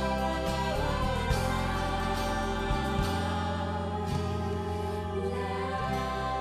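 Music: a slow piece of sustained chords over a changing bass line, with a sung melody in the first couple of seconds.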